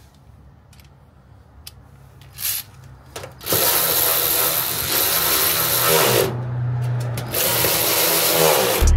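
Cordless drill driving bolts to fit caster wheels to a steel tool cabinet. It runs in two long stretches, the first starting about three and a half seconds in, with a short pause between. A brief whir and a few clicks come before.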